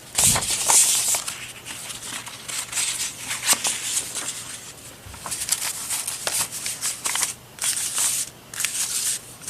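Sheets of paper rustling and sliding against each other as they are handled and sorted, with irregular short scrapes and taps.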